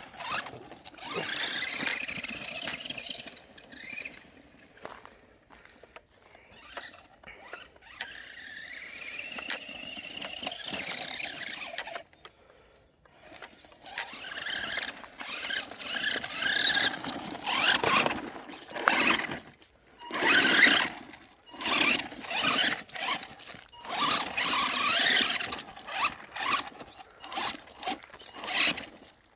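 Maverick Phantom XT RC off-road car driving hard: its electric motor whines in repeated bursts, the pitch rising and falling as it speeds up and slows, over scrabbling noise, with a short lull about twelve seconds in.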